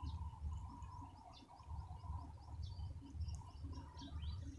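Small birds chirping in the background: many short, high chirps, with a quick run of notes in the middle, over a low rumble.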